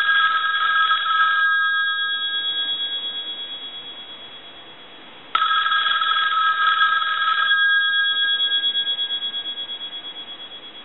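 Western Electric 685A bell box's bells ringing on a normal ring cycle: a ring of about two seconds that dies away slowly, then a second ring about five seconds in that fades out in turn. The ringer is adjusted for its most sensitive ring so that it will ring on lower-voltage phone lines.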